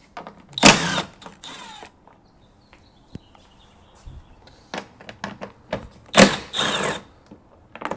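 Mechanical clatter and clicks from tools and parts being handled while a car's rear bumper is taken apart: two short louder bursts, about a second in and again near the end, with scattered small clicks between them.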